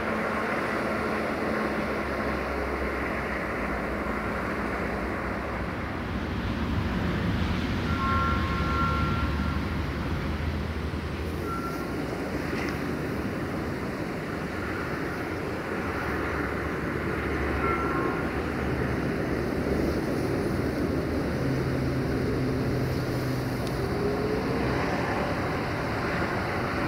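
Diesel train engine running at a distance, a steady low drone that swells and eases a little as the train approaches.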